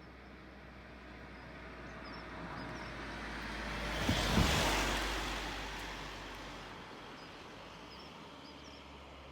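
A car passes by, growing louder to a peak about halfway through with a couple of low thumps, then fading away. Faint bird chirps in the background.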